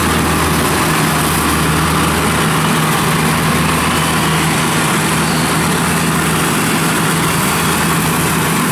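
Kubota DC70 rice combine harvester's diesel engine running steadily while it cuts and threshes standing rice. A low engine hum sits under a steady, even rushing noise from the working machine.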